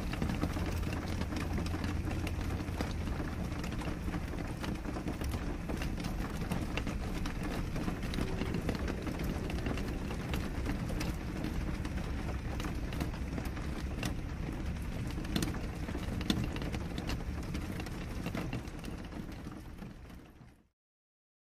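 Steady rain: an even hiss with many small drop ticks scattered through it, fading out near the end.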